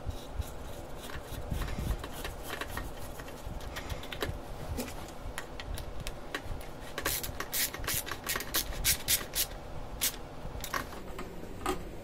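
Hand-handling noises as a corrugated plastic air intake hose and its silencer are fitted, with rubbing and scraping. Then comes a quick run of sharp clicks, from about seven to nine and a half seconds in, as a metal worm-drive hose clamp is tightened with a small screwdriver. A couple of single clicks follow near the end.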